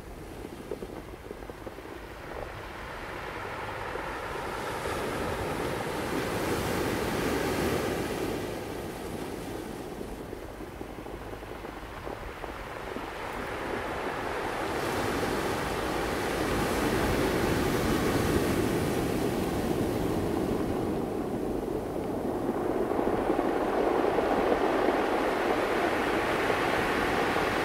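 Ocean surf: the steady rush of waves breaking and washing in, swelling and fading in slow surges several seconds apart.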